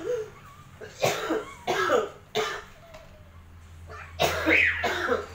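A person coughing: several short, sharp coughs, then a longer, louder burst of coughing or voice about four seconds in.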